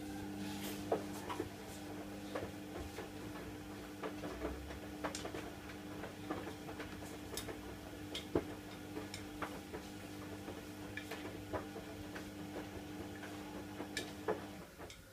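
Kitchen tap running with a steady low hum, while things are rinsed and handled under it, giving many small clicks and knocks. The water cuts off near the end.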